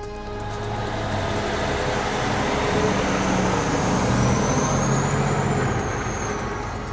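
A large motor vehicle driving past: engine and road noise swell to a peak midway and then fade away.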